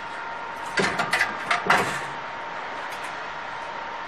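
Several short clanks and knocks of the steel frame and parts of a chalk making machine being handled, bunched together about a second in, over a steady background hum.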